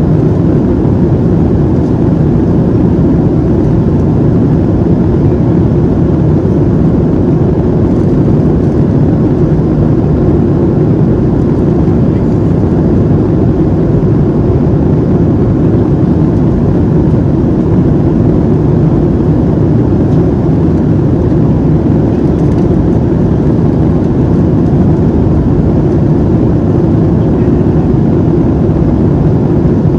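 Steady cabin drone of a Boeing 737-700 airliner in flight, the rush of airflow and its CFM56-7B jet engines heard from a passenger seat.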